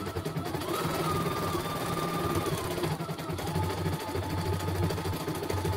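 CNY E900 computerized embroidery machine stitching a design, its needle running with a fast, even clatter. A motor whine steps up in pitch about a second in, then drops back about halfway through.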